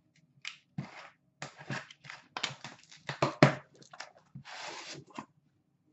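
Cardboard shipping case handled and opened by hand: a quick string of rustles, knocks and scrapes as the flaps are pulled open and the boxes inside are shifted, with one longer rasping scrape about four and a half seconds in.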